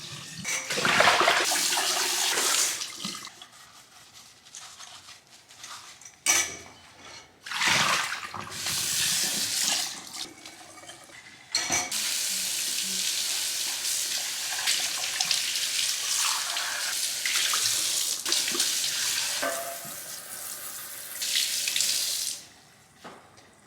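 Kitchen tap running into the sink while dishes are rinsed. The water is turned on and off several times, and the last run lasts about ten seconds before it stops near the end.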